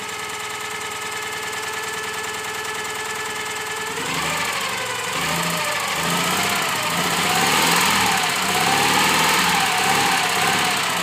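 Citroën 2CV AZU's air-cooled flat-twin engine running on its first start after years standing: steady idle for about four seconds, then the engine speed picks up and rises and falls unevenly.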